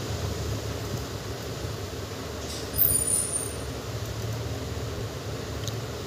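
Steady low background hum with a brief, louder high-pitched squeal about three seconds in.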